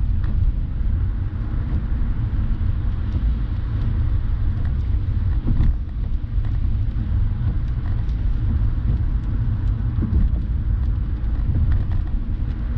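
Steady low road rumble and tyre noise heard inside a car's cabin driving on a wet highway, with a few faint ticks here and there.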